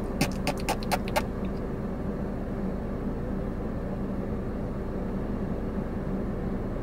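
Steady hum inside a car cabin, with the engine idling and the air conditioning running. A quick run of sharp clicks comes in the first second.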